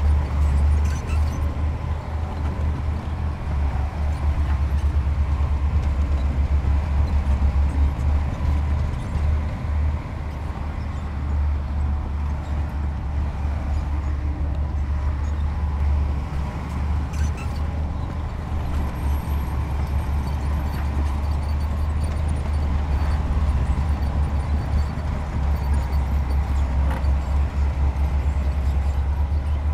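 Diesel engine of heavy earth-moving machinery running steadily, its sound concentrated low.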